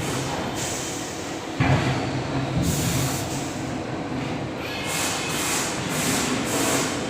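Horizontal boring and milling CNC machine running: a steady mechanical drone that steps up in level about a second and a half in, with several short bursts of hiss in the second half.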